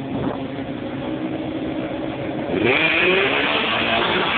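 Several rally cars' engines idling on the start grid, then revved up about two-thirds of the way in, rising in pitch and getting louder.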